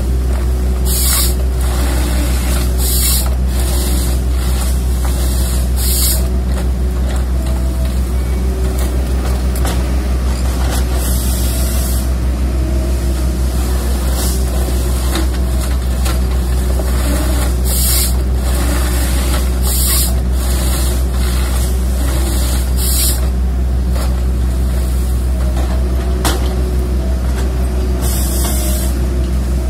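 Diesel engine of a Komatsu tracked excavator working as a tree harvester, running steadily under load. Short bursts of high hiss come every few seconds as the harvester head works.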